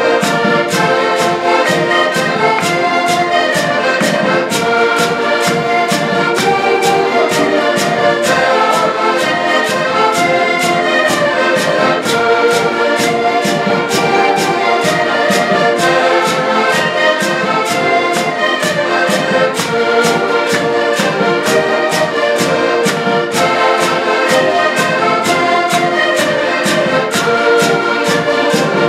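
An ensemble of diatonic button accordions playing a tune together, with chords and melody held over a steady beat of about two strokes a second.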